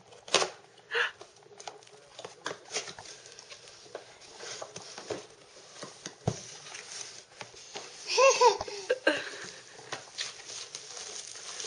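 Scattered clicks, taps and rustles of plastic play-kitchen parts and cardboard packaging being handled. A baby gives a short babbling squeal about eight seconds in.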